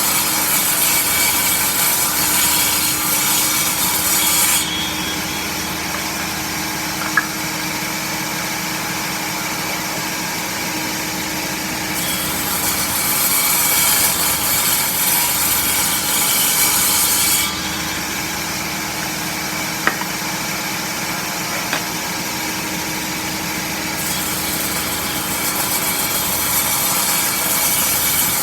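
A saw cutting through wood: a continuous rasping that switches sharply between brighter and duller stretches every several seconds, with a couple of sharp ticks.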